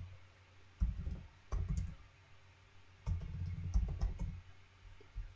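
Typing on a computer keyboard: key clicks with dull low knocks, in short runs, the longest starting about three seconds in.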